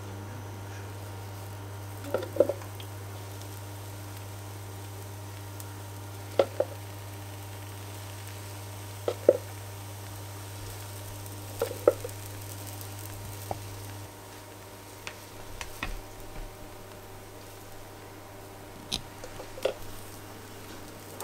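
Protein-pancake batter poured from a wooden cup into a nonstick mini-pancake pan, the cup knocking lightly against the pan rim about every three seconds. A steady low hum runs underneath and drops away about two-thirds of the way through. Near the end a plastic spatula clicks against the pan.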